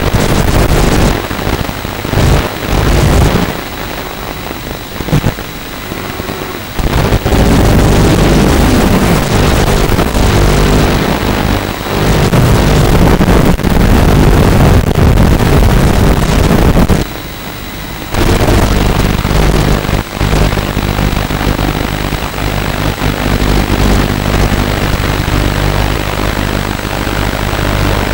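Walkera F210 racing quadcopter's four brushless motors and propellers whining loudly, rising and falling with the throttle and dropping away twice, briefly a few seconds in and again past the middle, as through the drone's own onboard microphone.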